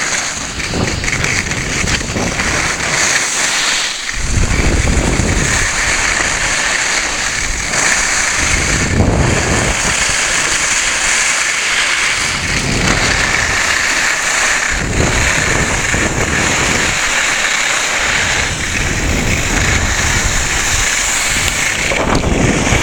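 Wind rushing over the camera microphone and skis hissing over packed snow on a downhill ski run. A low rumble swells and eases every few seconds over a steady hiss.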